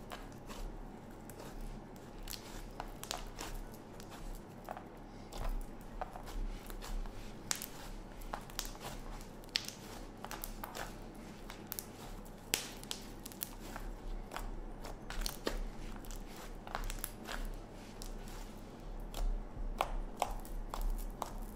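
Thick homemade slime mixed with fake snow and kinetic sand, kneaded and pressed by hand: irregular small crackles and squishes.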